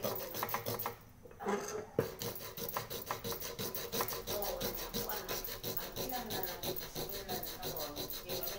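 Small piece of sandpaper scrubbed rapidly back and forth over the bottom of a small metal pot, a fast run of dry rasping strokes with a short pause about a second in.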